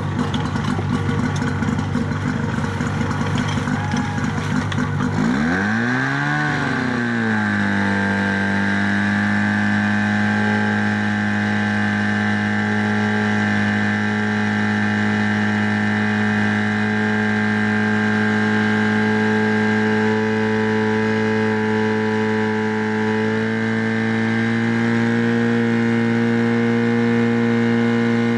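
Portable fire pump's engine running unevenly, then revving sharply about five seconds in, settling, and holding a steady high-speed drone, as when the pump is put under full throttle to drive water through the hoses. The pitch edges slightly higher near the end.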